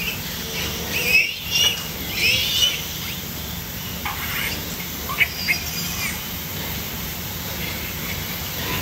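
Suckling piglets squealing at a nursing sow's teats: short, high squeals, several in the first three seconds and a few more around the middle, over a steady low background hum.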